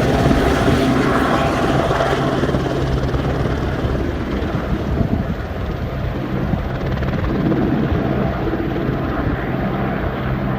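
Life Flight medical helicopter flying away after take-off: steady rotor and turbine noise with a low hum, growing duller and a little fainter from about four seconds in.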